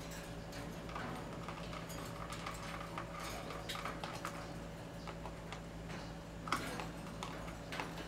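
Budgerigars bathing in a shallow plastic tub of water: an irregular run of small splashes, taps and clicks, with one louder knock about six and a half seconds in.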